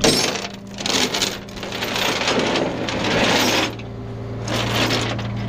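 Steel tow chain rattling and clanking in several bursts as it is handled and dragged while J hooks are set on the car, over a steady low hum.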